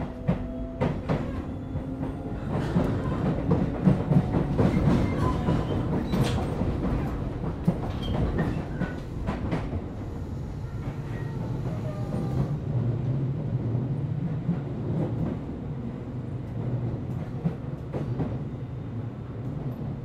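Tobu 8000 series electric train running at speed, heard from inside motor car MoHa 8270: a steady rumble of wheels and running gear with irregular clacks as the wheels cross rail joints. A low hum comes up about halfway through.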